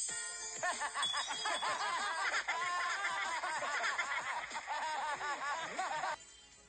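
A large crowd of many people laughing and giggling together. Short high-pitched laughs overlap for several seconds, then cut off suddenly near the end.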